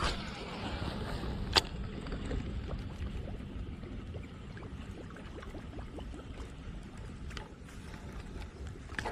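Water lapping and gurgling over a low steady rumble, with a few sharp clicks; the loudest comes about one and a half seconds in.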